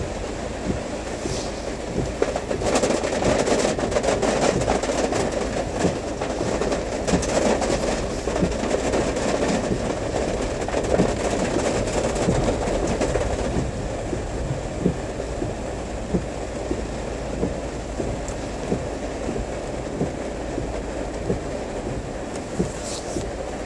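Steady rumble of a vehicle moving through rain, with many small irregular clicks and ticks over it; a little louder in the first half.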